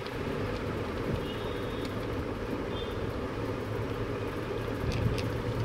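Steady low background rumble with a hum, with a few faint clicks near the end.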